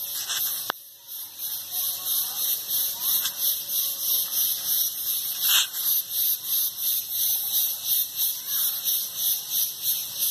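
A dense, high-pitched insect chorus pulsing about four times a second, with faint bird chirps now and then and a single click shortly after the start.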